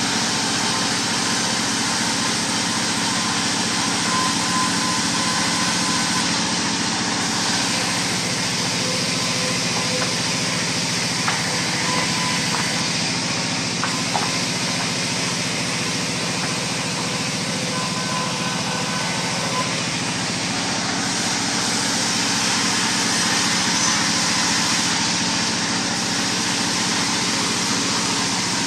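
Stationary single-cylinder diesel engine running steadily, driving a band sawmill by belt, with a few light knocks partway through.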